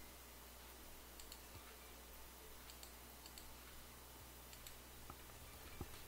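Faint computer mouse clicks, a few scattered through and some in quick pairs, over a steady low electrical hum.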